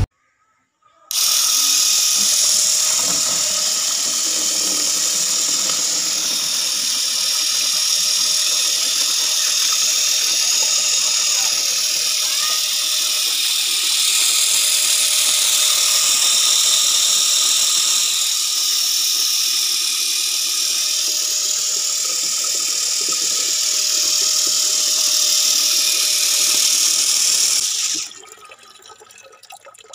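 Small electric gear motor running steadily with a high whine, its gear train driving a homemade PVC-pipe water pump through a rod linkage. It starts about a second in and cuts off about two seconds before the end.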